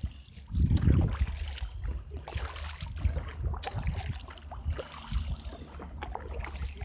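Kayak paddle dipping and splashing in the water in repeated swishes, over a steady low rumble of wind on the microphone.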